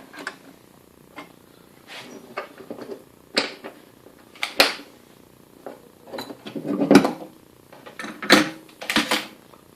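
Irregular clicks, knocks and short rasps of metal parts and hand tools being handled during reassembly of a belt sander, the loudest rasp about seven seconds in.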